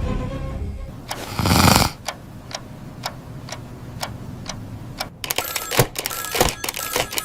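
Cartoon sound effects for a phone call: a short whoosh, then even ticking about twice a second, then a telephone ringing with a rapid clatter and steady high tones from about five seconds in.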